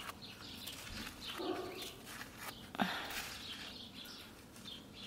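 Small birds chirping with soft rustling of soil and pine needles as a gloved hand clears a flower pot; a short call falling sharply in pitch stands out about three seconds in.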